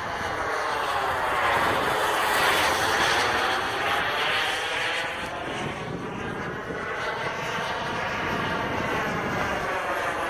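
Jet engine of a Saab Viggen flying overhead: a continuous rushing jet noise that swells and eases as the aircraft moves across the sky.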